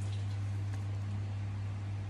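A steady low hum, with faint rustling of a camouflage jacket's fabric being handled.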